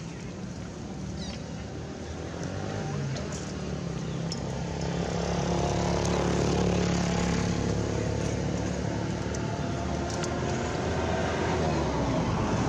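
A motor vehicle's engine running with a steady low hum, growing louder over the first half as it comes closer, then holding.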